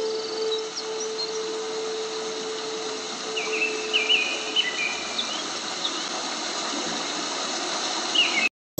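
Multi-head CNC wood router with four spindles running, engraving designs into a wood board: a steady hiss of the spindles and cutting. A steady whine rides on it and stops about three and a half seconds in.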